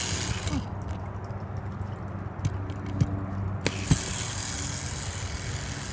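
Small electric motor of a battery-operated toy train engine whirring steadily, with a few sharp clicks and knocks between about two and a half and four seconds in.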